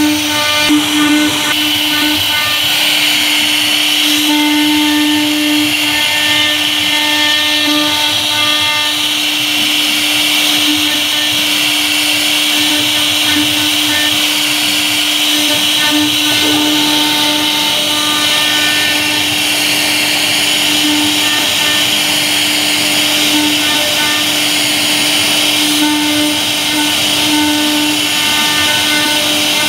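CNC router spindle running steadily while a V-bit carves grooves into a wood board: a constant whine with the hiss of the bit cutting.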